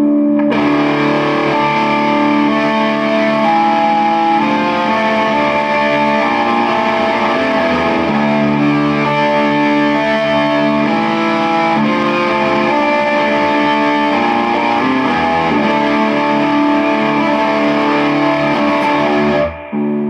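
Fender Squier Standard electric guitar with white pickups played through a Peavey Valve King valve amp with a lot of gain: a slow line of distorted notes, each held about a second and ringing into the next, with clear articulation. It cuts off abruptly near the end.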